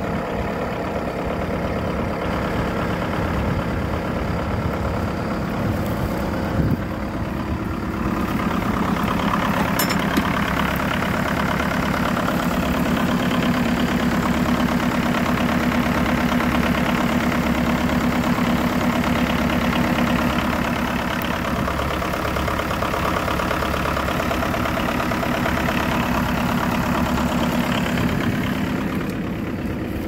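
Leyland 154 tractor engine idling steadily, a little louder from about eight seconds in.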